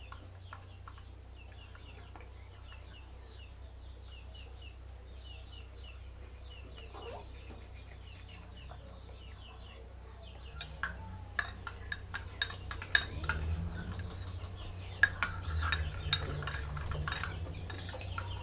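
Chickens clucking in the background. From about ten seconds in, a metal spoon clinks and knocks repeatedly against a container as the shampoo slime mixture is stirred.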